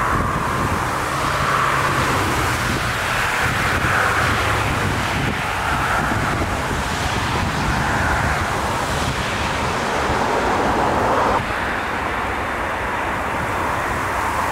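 Airbus A380 jet engines running loudly as the airliner rolls out after landing, with a pulsing whine over a low rumble and wind buffeting the microphone. About three-quarters through, the sound changes abruptly to a slightly quieter jet noise.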